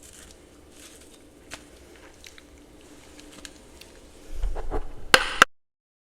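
Ice being handled and eaten: faint small clicks and crackles, then a low thump about four and a half seconds in and a short, loud crunch of ice or frost being bitten. The sound cuts off suddenly just after the crunch.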